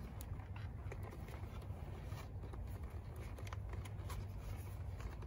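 Faint scattered clicks and rustles of a leather stirrup leather being worked through a Blevins buckle by hand, over a low steady rumble.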